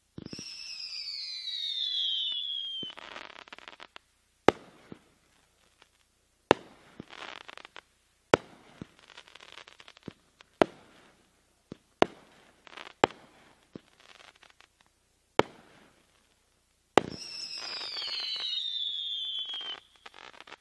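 Space Monkey consumer firework going off. A falling whistle of several tones sounds at the start and again near the end. In between come about eight sharp bangs a second or two apart, each followed by a short crackle.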